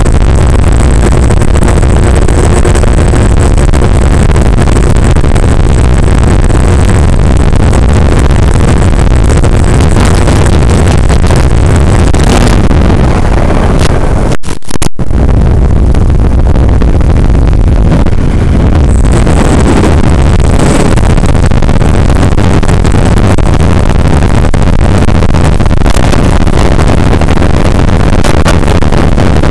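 A Skywalker 1900 FPV plane's electric motor and propeller running, with loud wind rush, heard from on board. About halfway the throttle is cut back and the sound thins to mostly wind, with a brief break in the sound. A few seconds later the motor comes back up under power.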